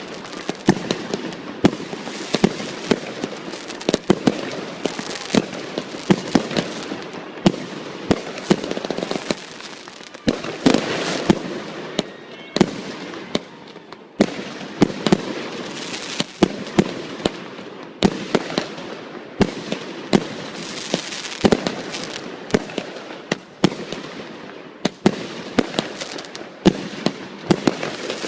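Fireworks display going off without a break: sharp bangs of launches and bursting shells come in quick succession, often several a second, with hissing and crackling between them.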